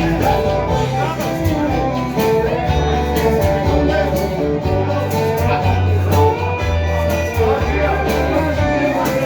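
Live country band playing an instrumental passage without vocals: guitar over a bass line and a steady drum beat.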